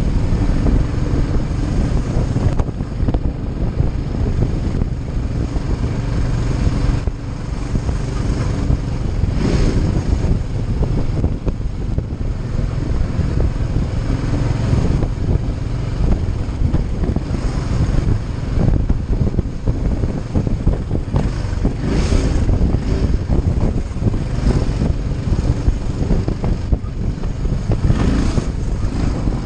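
Cruiser motorcycle engine running steadily at cruising speed, mixed with wind rush on the microphone and road and traffic noise that swells briefly now and then.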